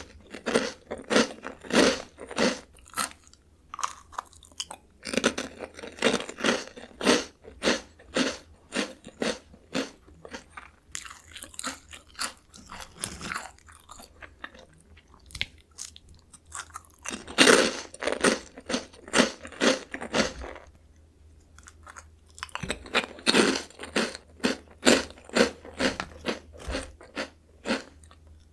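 Crunchy Jagalchi seafood-flavoured snack crackers being bitten and chewed, close-miked, in several bouts of quick crunches with short pauses between them.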